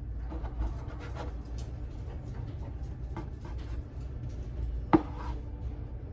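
A hand dough-cutting tool tapping and scraping on a countertop while sourdough is cut and handled, with one sharp knock about five seconds in.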